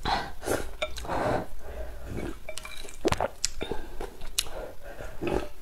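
Slurping and chewing hot and sour sweet-potato glass noodles in broth, in a run of short slurps, with wooden chopsticks clicking against the porcelain bowl.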